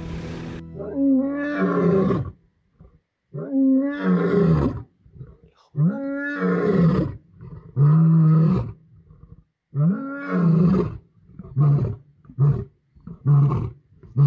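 Lion roaring: about five long, moaning roars, each rising then falling, followed near the end by a run of shorter grunts about one every 0.7 s, the typical close of a lion's roaring bout.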